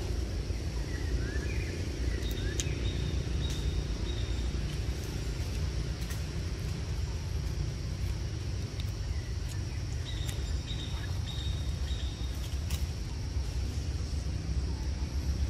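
Outdoor ambience: a steady low rumble with a few faint, high, short chirps and scattered light clicks.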